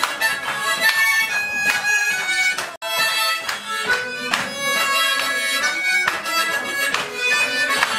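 Harmonica playing a melody in chords, several notes sounding at once. There is a momentary break in the sound about three seconds in.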